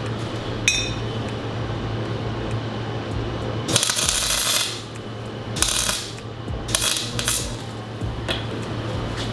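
Metal workshop sounds: a single ringing metallic clink, then three short bursts of crackling noise, the first about a second long, over a steady low hum.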